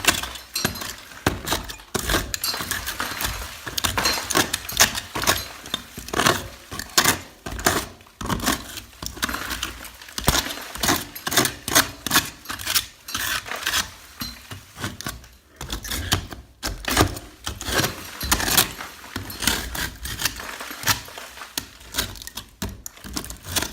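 Loose plaster being chipped and scraped away from a lath and plaster wall with a hand tool: a dense run of irregular sharp knocks and scrapes with crumbling plaster.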